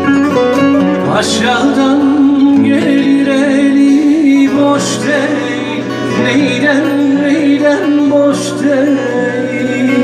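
Man singing a Turkish folk song over a strummed acoustic guitar, the voice coming in about a second in.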